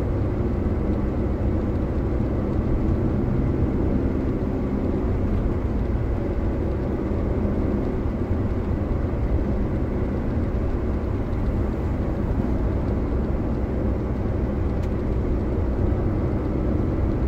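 Steady engine and road noise inside the cab of a Daihatsu Gran Max cruising on the motorway, an even low rumble with no sudden sounds.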